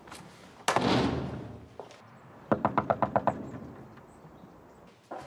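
A heavy wooden front door shut firmly less than a second in, then a quick run of about eight knocks on the door about two and a half seconds in.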